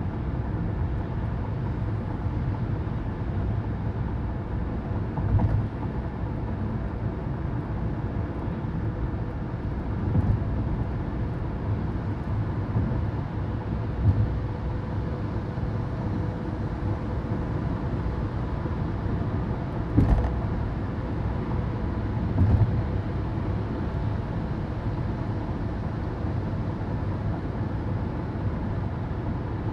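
Car driving at highway speed, heard from inside the cabin: a steady low rumble of road and engine noise with a faint steady hum, and a handful of brief thumps spaced through it.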